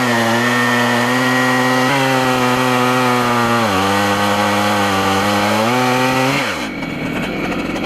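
Stihl MS880 two-stroke chainsaw on an Alaskan chainsaw mill, ripping at full throttle through oak. Its pitch sags under load about halfway through and recovers, then winds down sharply near the end as the cut finishes.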